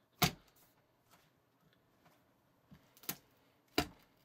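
Squishy eyeball splat ball smacking down onto a tabletop and flattening: one sharp splat about a quarter of a second in, then two softer smacks near the end.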